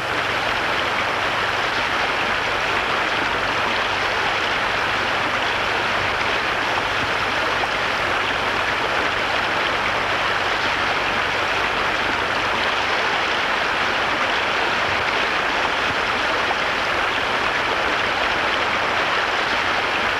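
Water rushing steadily from hydraulic mining jets: a loud, constant hiss of spray and pouring water.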